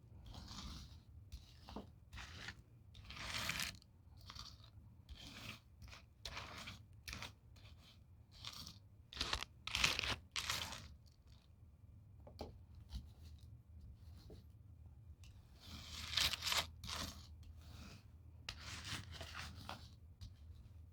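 Irregular crunching and crackling of dry debris being sucked up by a vacuum cleaner, over a faint low steady hum. The loudest crunches come about ten seconds in and again around sixteen seconds.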